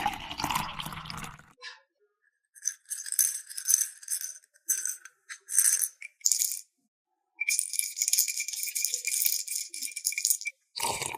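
Small hard plastic toy pieces rattling. A brief rustling clatter comes first, then several short shakes, then one longer shake of about three seconds near the end.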